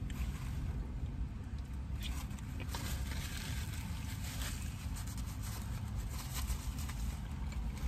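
Paper food wrapper crinkling and rustling as a chicken wrap is handled and bitten into, mostly in the middle of the stretch, over a steady low rumble inside a car's cabin.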